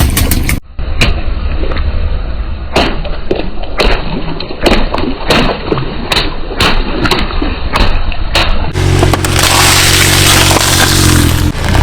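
Irregular sharp cracks and crunches of objects being crushed under a car's tyres. After a cut about nine seconds in comes the steady running of a car engine.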